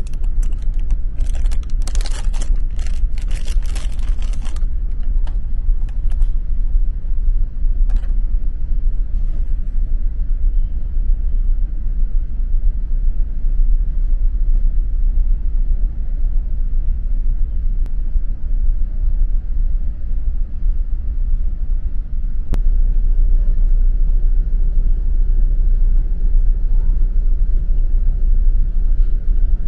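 Deep, steady rumble of a car ferry's engines and hull vibration, Ocean Tokyu Ferry's Shimanto under way. For the first few seconds a plastic bread wrapper crinkles as it is torn open.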